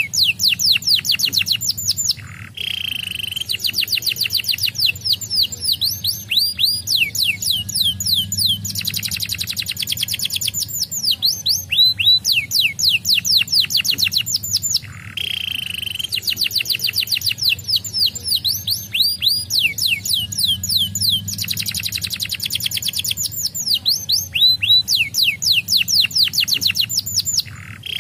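Domestic canary singing a long, fast song of rolling trills, each a rapid run of quick falling whistled notes. There are brief breaks about two seconds in and again about halfway through.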